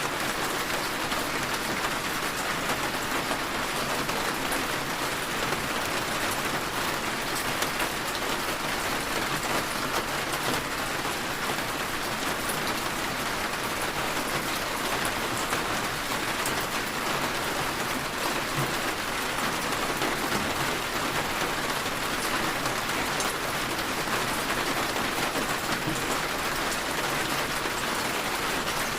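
Steady rain falling, with a dense even hiss of drops on a surface and fine individual drop patter in the highs.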